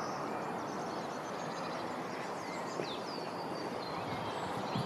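Outdoor ambience: birds chirping now and then over a steady, even hiss.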